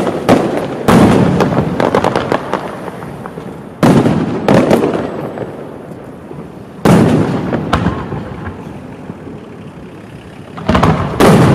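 Fireworks shells bursting in the sky: a run of sharp booms, several close together in the first second, then single bangs every few seconds, each followed by a long rumbling echo that dies away.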